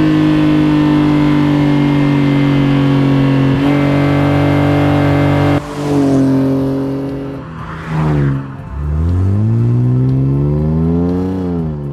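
Nissan Skyline R34's RB20DE NEO 2.0-litre straight-six engine, naturally aspirated, held at steady high revs for about five and a half seconds. It then drops off suddenly and the revs fall away. Near the end the revs climb again for about three seconds and fall once more.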